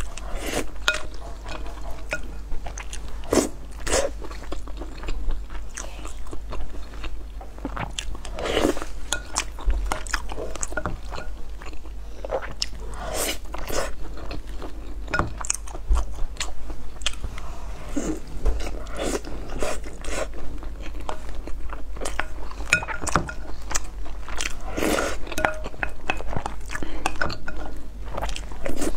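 Close-miked eating: chewing and biting of mouthfuls of rice soaked in braised pork sauce and pieces of braised pork belly, with wet mouth smacks and many irregular short clicks.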